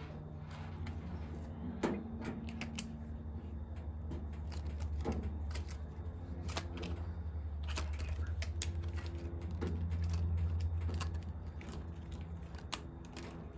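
Scattered small clicks and metallic ticks of screws being worked out of a freeze dryer's back panel and handled, over a steady low hum.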